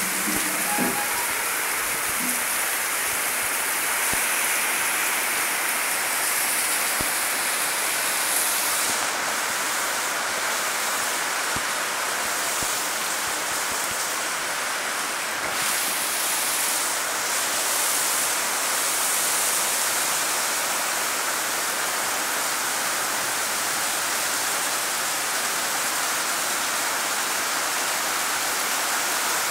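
Rain falling steadily, an even hiss that holds without let-up.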